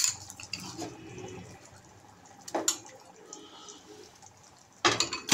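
A spoon scraping and knocking against a glass bowl as mashed boiled chickpeas are scooped out and dropped into a pan of gravy, with soft wet sounds of the mash going in. The sharp knocks come at the start, once in the middle and several near the end.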